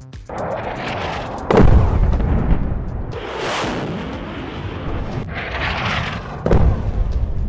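Two heavy explosions, one about a second and a half in and one near the end, each a sudden deep boom trailing into rumble; the second is a 500-pound bomb going off. Between them a jet's rushing noise swells and fades.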